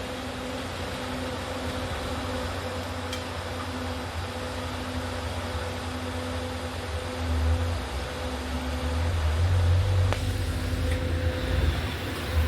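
Steady hiss of electric arc welding on stainless steel with a faint machine hum, and a low rumble that grows louder in the last few seconds.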